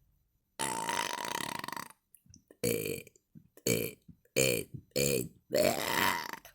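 A woman burping on command: one long burp, then five shorter burps in quick succession, the last a little longer.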